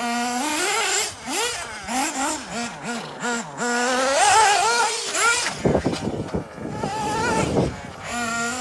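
Kyosho Inferno MP9 TKI4 nitro buggy's small two-stroke glow engine idling, then revving up and down repeatedly in quick blips, with a rough rattling stretch in the second half before it settles back to a steady idle near the end.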